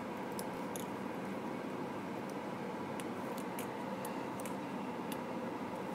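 Steady hiss with light clicks and taps of small plastic Lego pieces being handled and pressed together, about a dozen of them scattered through, several close together past the middle.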